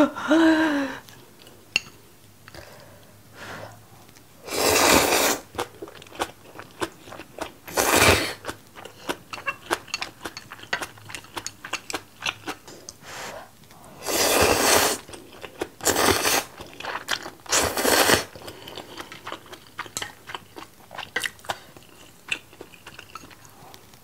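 Close-miked eating: crunchy chewing of napa cabbage kimchi with many small wet clicks, broken by five loud slurps, near 5, 8, 14, 16 and 18 seconds in. A short hummed vocal sound comes at the very start.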